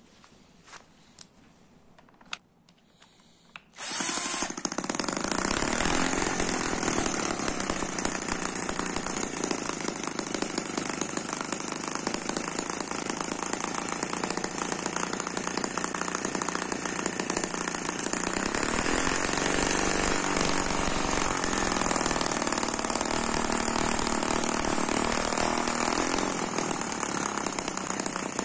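A few faint clicks, then about four seconds in the Eachine ET5S twin-cylinder four-stroke model gasoline engine cuts in suddenly and runs steadily at idle. Its rapid exhaust firing is loud enough to overload the camera microphone.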